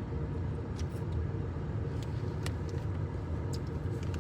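Steady low rumble of a running motor vehicle, with a faint steady hum and a few small clicks scattered through it.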